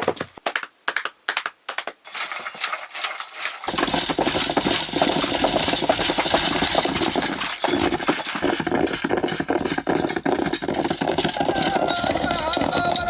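Layered film sound effects played back in a mixing studio: a few separate sharp knocks, then from about two seconds in a loud, dense, continuous rumble that grows fuller shortly after.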